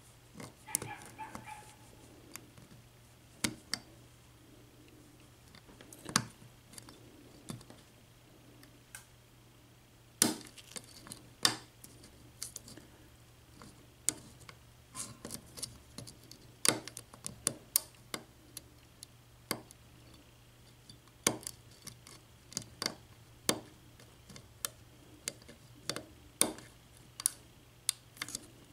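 Lock pick and tension wrench working the pin stack of a Kasp 14040 padlock, giving scattered small metallic clicks and ticks at irregular intervals, some sharper than others, as its serrated and spool pins are picked. A faint steady hum underneath.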